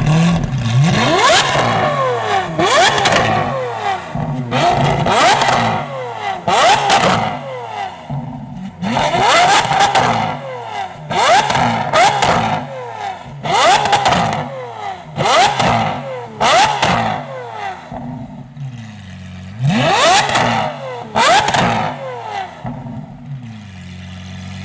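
Lamborghini Aventador SVJ's naturally aspirated 6.5-litre V12, through a Gintani aftermarket exhaust, revved hard about a dozen times, often in quick pairs, each rev climbing sharply and falling back to idle. Absolutely ear-piercing; it settles to idle near the end.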